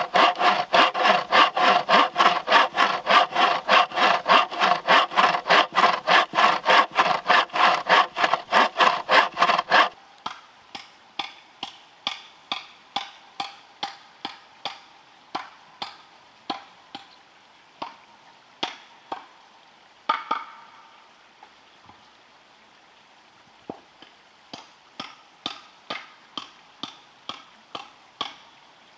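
Hand saw cutting through a green bamboo pole in rapid, even back-and-forth strokes, about four a second, stopping about ten seconds in. After that, a quieter run of sharp knocks at a steady pace, with a short pause, then starting again near the end.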